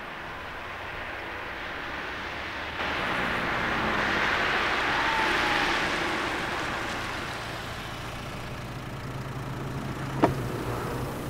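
A small hatchback pulling up on the road shoulder: tyre and engine noise swell to a peak about five seconds in, then settle to a steady low engine idle. A single sharp click comes near the end.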